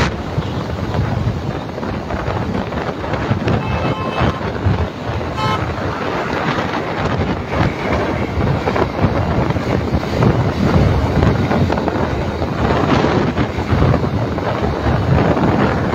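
Wind and road noise on a phone microphone while riding a Hero Splendor motorcycle through traffic. A vehicle horn toots briefly about four seconds in and again about five and a half seconds in.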